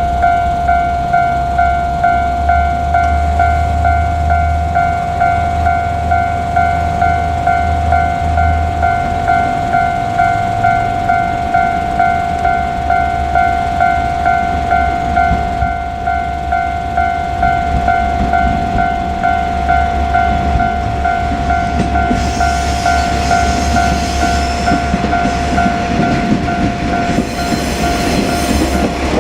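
Japanese railway level-crossing warning bell ringing with an even, repeating pulse, over the low rumble of a KiHa 47 diesel railcar. About three-quarters of the way through, the railcar comes past and a hissing rattle of wheels on rail grows under the bell.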